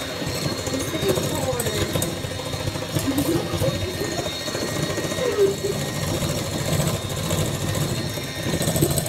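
Electric hand mixer running steadily with its beaters in a bowl, with voices faintly over it.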